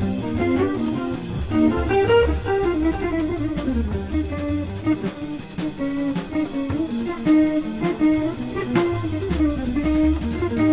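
Jazz quartet-style recording: guitar and double bass with drums, a single-note melodic line winding up and down over walking low notes and light cymbal ticks.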